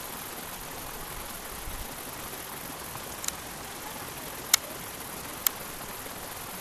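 Steady outdoor hiss with three short, sharp clicks about three, four and a half and five and a half seconds in, the middle one loudest.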